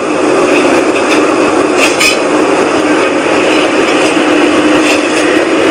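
Loud, steady whooshing rumble with a constant low hum running through it: a 'strange sky sound' of unknown source, which the recorder insists is not aircraft noise.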